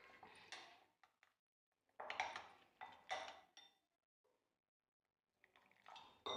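Faint scraping and clinking of a steel spoon stirring thick gram-flour batter in a glass bowl, in two spells with a pause between. Near the end a little water goes into the batter to thin it.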